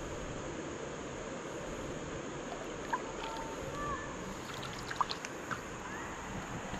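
Steady rush of flowing river water, with a few faint short chirps and clicks about halfway through.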